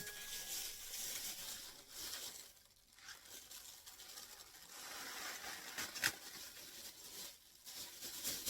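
Faint rustling and crinkling handling noise, with a sharp click about six seconds in.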